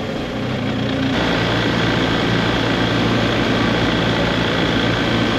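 BMW R1250 GSA motorcycle's boxer-twin engine running steadily while riding, under a continuous rush of wind and road noise; the engine note shifts about a second in.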